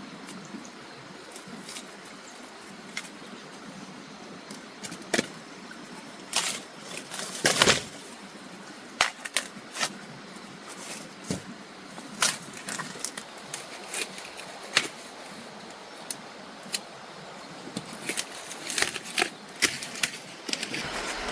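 Irregular rustling, clicks and knocks over a steady hiss, with a few louder clatters around the middle and a busier run near the end.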